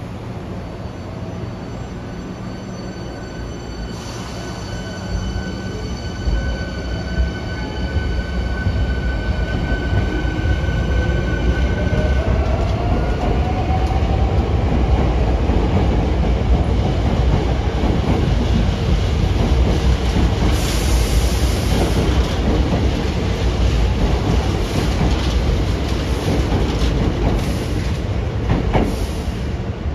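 Hankyu electric train getting under way and running: a heavy rumble grows over the first several seconds, and a whine rises in pitch as the train gathers speed, then the running noise holds steady.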